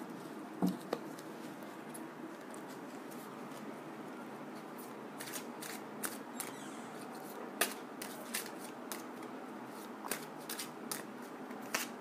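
Deck of cards being shuffled by hand: soft rustling and scattered sharp clicks of cards against one another, thickening from about halfway through, over a faint steady hiss.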